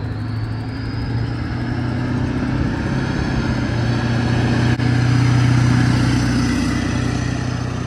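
A motor vehicle's engine running close by, a steady low hum that grows louder to a peak about five seconds in, then eases off a little.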